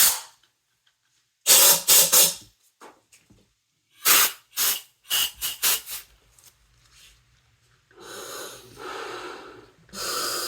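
Pressurised air hissing from a Scubapro Air 2 regulator-inflator: a string of short, sharp blasts in the first half, then longer stretches of hissing air flow near the end.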